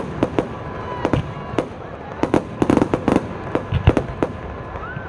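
Fireworks bursting in a rapid, irregular run of sharp bangs and crackles, with a few heavier booms among them.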